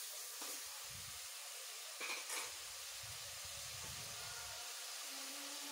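Sliced ridge gourd and potato frying in oil in an open pressure cooker, a steady soft sizzle. A couple of light metal clicks come from the steel ladle against the pot about half a second and two seconds in.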